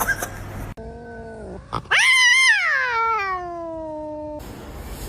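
A domestic cat meowing: a short, quieter call, then a long, loud yowl that rises briefly and then slides slowly down in pitch before cutting off abruptly.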